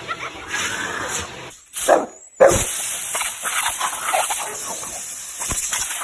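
A dog barking a few times in short calls, with the sound cutting out briefly about two seconds in.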